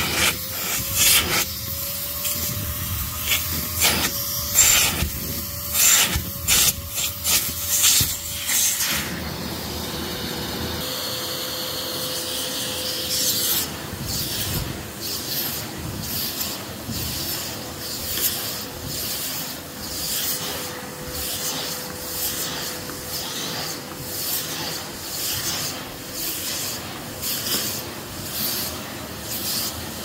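Victor V9 600 W commercial bagged vacuum cleaner running with a steady hum and airflow hiss. Over the first nine seconds there are loud knocks and rubbing as the hose and floor tool are handled; then the floor tool is pushed back and forth over carpet, a rubbing swell about once a second.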